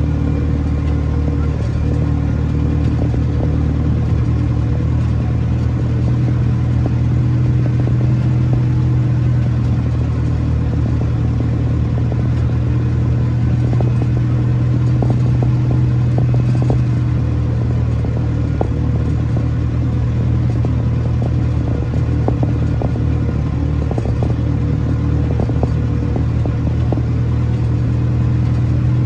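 Tractor engine running steadily at a constant speed, with a low, even hum and some light clatter.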